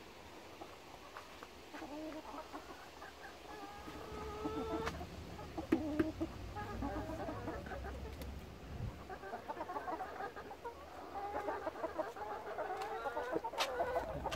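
Several chickens clucking in a coop, a run of short calls that grows busier after the first few seconds.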